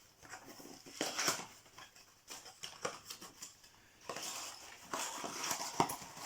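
Cardboard packaging rustling and scraping in irregular bursts with small clicks as a box door on an advent calendar is opened and its contents unpacked.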